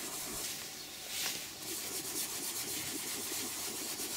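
Toothbrush bristles scrubbing foaming leather cleaner into a leather car seat in small circles: a soft, quick scrubbing rub that settles into rapid, even strokes after about a second and a half.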